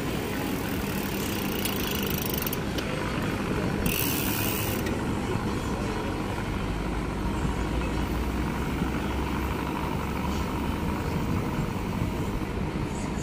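Steady low engine rumble from boats passing on the water, with a brief hiss about four seconds in.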